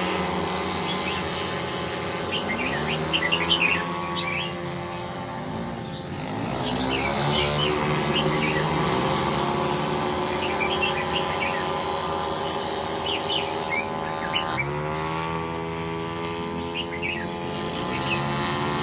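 Race car engines running hard, their revs climbing and dropping several times, with a marked rise about six seconds in and again near fifteen seconds. Birds chirp throughout.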